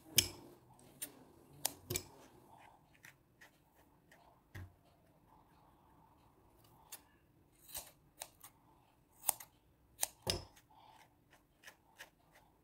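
Scissors snipping through the yarn hair of a crocheted toy dog: irregular sharp snips, a few at a time with pauses between. Near the end, quicker, lighter strokes of a slicker brush through the yarn.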